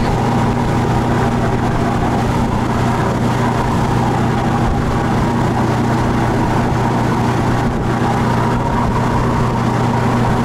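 Motor boat's engine running at a steady cruising pace with a constant low hum, over the rush of water along the hull.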